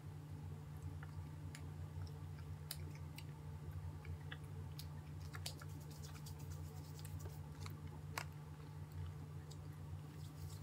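Faint, irregular sticky clicks and smacks of chewing gummy sour candy straps, over a steady low hum.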